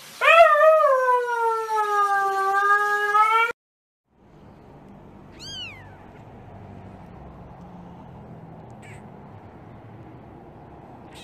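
A wet puppy howls one long, loud howl that rises then slowly falls and cuts off after about three and a half seconds. Then a newborn kitten gives a short, high mew, a fainter one later and another at the very end.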